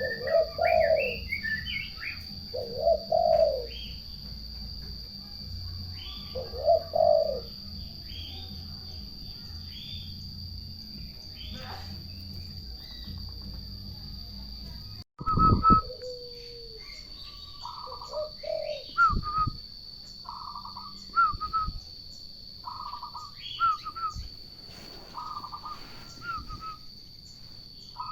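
Turtle doves cooing in repeated low phrases, with other birds chirping around them. About halfway there is a break with a dull thump, after which a steady series of short calls repeats about once a second, over a constant high-pitched tone.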